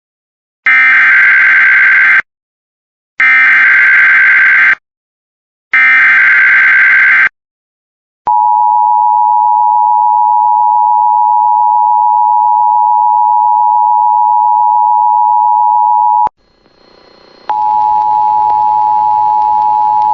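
Emergency Alert System SAME header: three identical bursts of screeching digital data tones, about a second apart, marking the start of a weather alert. Then the EAS attention signal, a steady two-note tone, holds for about eight seconds. After a short gap with hiss, a steady tone over hiss begins near the end.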